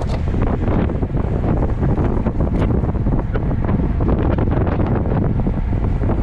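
Wind buffeting the microphone of a camera on a road bike riding at about 20 mph: a loud, steady low rush.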